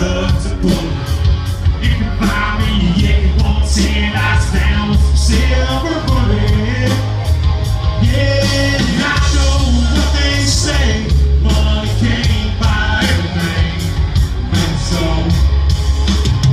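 Live country-rock band playing: electric guitars, bass and a steady drum beat, with a man singing over them.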